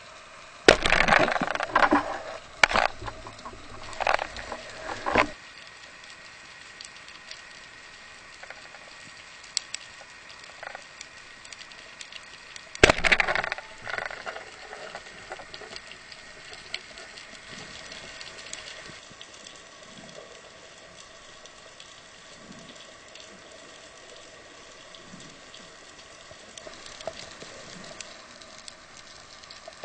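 Underwater recording: a steady faint hiss, broken by two sudden loud bursts of irregular clattering, one just under a second in lasting several seconds and a shorter one about 13 seconds in.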